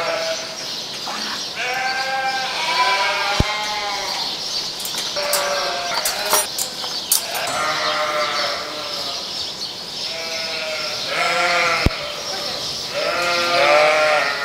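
A flock of sheep and lambs bleating, many overlapping calls one after another. A sharp click about three seconds in and another near the end.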